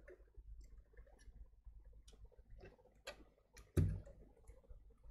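Scattered light clicks and knocks of a computer power supply's sheet-metal case and circuit board being handled and fitted together, with one louder knock about four seconds in.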